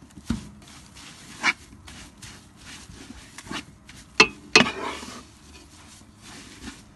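A utensil stirring and scraping jute mallow (mloukhiyeh) leaves around a pan as they fry in fat, a stage of drying them out until crisp. It is a run of short rustling scrapes, the loudest a close pair about four seconds in.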